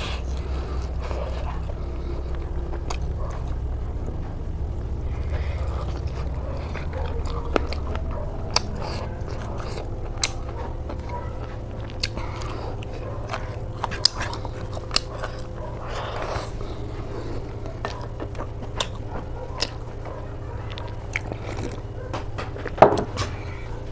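Eating sounds: chewing and biting into pork belly and green chilies, with scattered sharp smacks and clicks, over a steady low hum.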